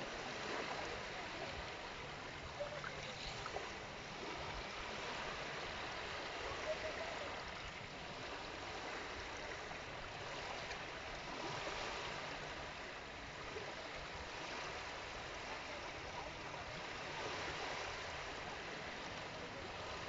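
Small sea waves lapping and washing up over a shelly, pebbly beach at the water's edge: a steady hiss of surf that swells and eases gently.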